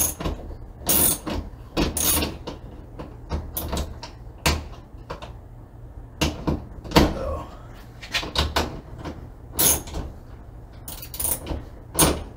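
A steel socket on an extension bar clinking and scraping against the nuts and studs of a battery bus bar, with irregular sharp metallic clicks and knocks every half second to a second. The socket is too shallow to seat over the stud.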